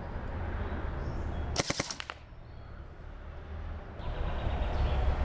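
A quick cluster of sharp cracks about one and a half seconds in: a toy airsoft-type gun firing a 0.25 g biodegradable ball at a man's back and the ball striking him. A steady low wind rumble on the microphone grows louder near the end.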